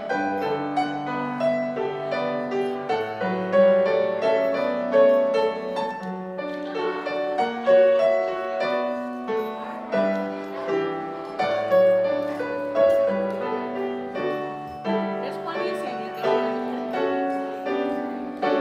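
Solo piano playing a slow piece in full chords, each note struck sharply and left to ring and fade.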